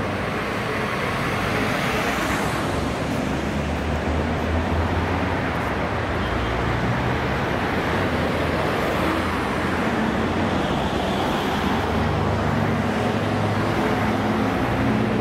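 Engine and road noise of a vehicle driving along a city street, heard from inside the vehicle: a steady low engine hum under continuous tyre and traffic noise.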